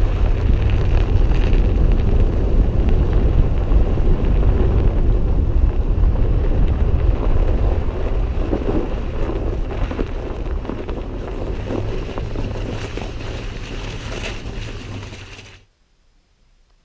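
A vehicle engine running with a steady low rumble, with wind buffeting the microphone. It gets gradually quieter in the second half and cuts off abruptly near the end.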